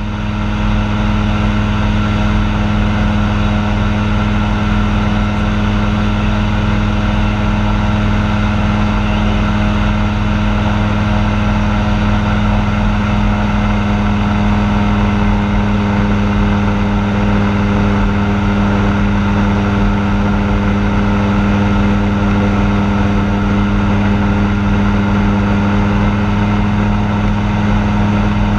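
Light aircraft's piston engine and propeller in cruise flight, heard inside the cockpit: a loud, steady, unchanging drone.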